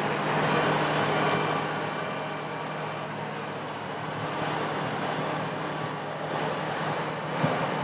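2011 Dodge 5500 bucket truck's diesel engine running steadily with the PTO engaged, driving the hydraulics while its Altec AT40M boom is raised. There is one short sharp knock near the end.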